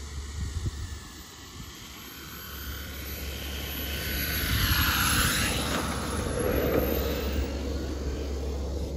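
Propeller-driven radio-controlled model airplane landing: its motor and propeller sound grows as it passes low over the runway, loudest about five seconds in, then carries on as it rolls out.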